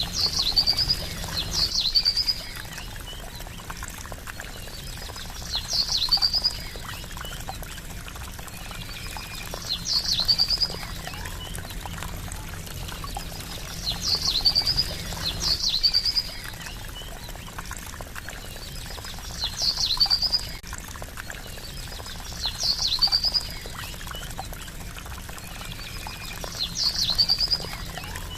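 A small bird calling over and over, about every four seconds, each call a sharp high note followed by a quick series of shorter notes, over a steady trickle of flowing water.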